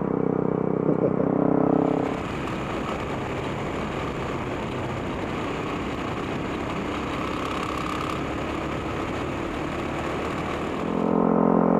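Dual-sport motorcycles riding on a dirt road: a steady engine hum for the first two seconds, then mostly wind rushing over the bike-mounted microphone with engine noise underneath, and the engine hum comes back near the end.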